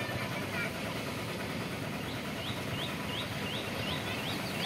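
A steady low engine rumble, with a bird repeating a short rising call about twice a second from about halfway through. The calls come quicker near the end.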